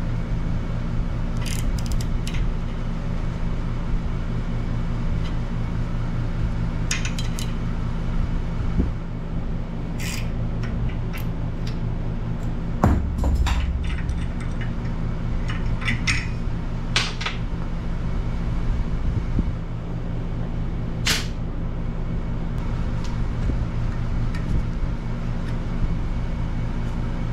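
Scattered metallic clicks and clinks of a brake-line flaring tool and wrench being worked on a copper-nickel line held in a bench vise, with one louder knock about 13 seconds in. A steady low hum sits under it.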